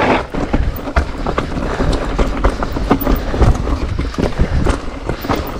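E-mountain bike rolling over a loose, rough trail: tyres crunching on gravel and the bike rattling and knocking over bumps, with a continuous low rumble.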